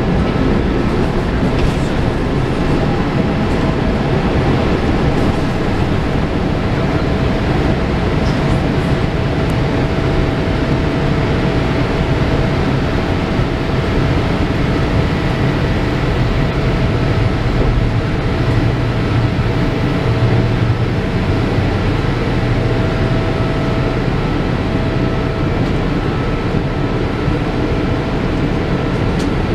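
Cabin noise of a Boeing 787-8 during takeoff and climb: its GE GEnx-1B engines at high thrust and the airflow, heard from a window seat as a loud, steady rumble with a faint steady whine.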